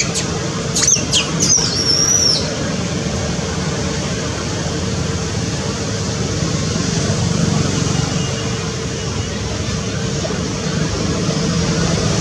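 A steady mechanical hum with a constant low tone, typical of town traffic. In the first two seconds or so, a few high, sharply sliding chirps sound over it.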